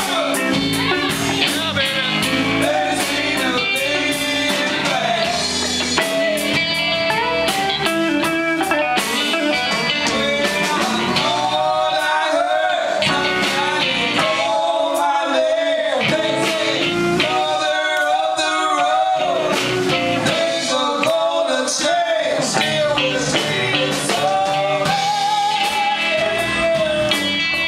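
Live blues band playing: two women singing over electric guitars, bass and drums.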